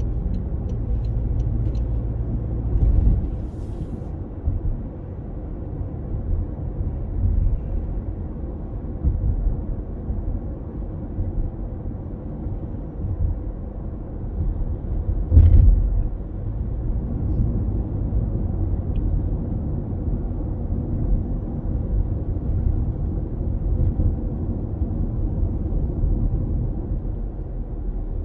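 Car cabin road noise while driving at road speed: a steady low rumble of tyres and engine, with two short thumps, the louder one about halfway through. A few light ticks at the very start are the turn signal, just used to move back into the right lane.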